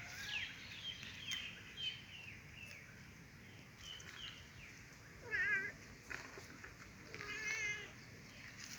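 Domestic cat meowing: two drawn-out, wavering meows, the louder about five seconds in and another near the end, with a series of short high chirps in the first few seconds.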